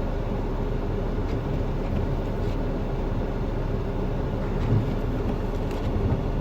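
Jeep Wrangler Sport driving on a snow-covered road, heard from the cabin: a steady low engine drone and tyre rumble.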